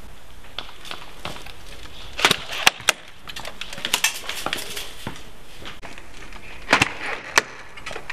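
Scattered sharp cracks and clicks of airsoft gunfire and BBs striking wood. They come in short irregular clusters, loudest about two to three seconds in and again near seven seconds.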